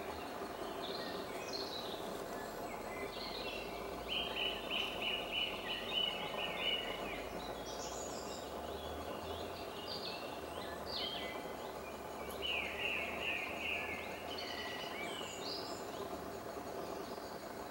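Woodland songbirds singing over a steady hiss of background noise, with a rapid trill of quickly repeated notes about four seconds in and again about twelve seconds in.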